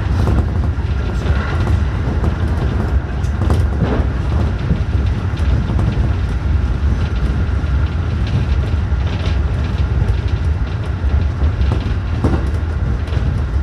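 Running noise inside a JR Tokai 211 series electric multiple unit travelling at speed: a steady low rumble with scattered sharp clicks from the wheels on the track.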